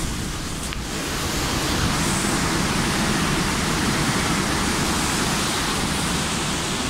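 Steady, loud rushing of foaming sea water churning along a cargo ship's hull, growing a little louder about a second in.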